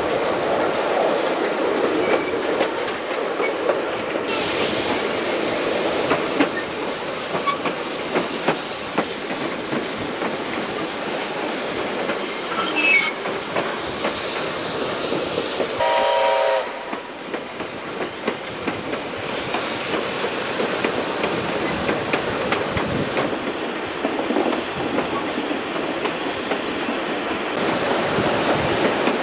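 Broad-gauge steam-hauled passenger train running, heard from an open carriage window: a steady rumble with the clatter of carriage wheels over rail joints. About halfway through, a locomotive steam whistle gives one short blast.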